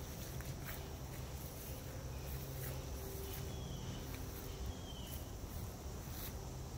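Quiet outdoor ambience: a steady low rumble and a steady high hiss, with two short, falling chirps a little past the middle.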